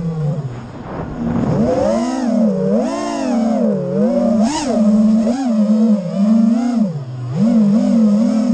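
FPV quadcopter's brushless motors whining, the pitch swooping up and down over and over with the throttle. It drops low near the start, climbs back within a second or two, and dips low again about seven seconds in.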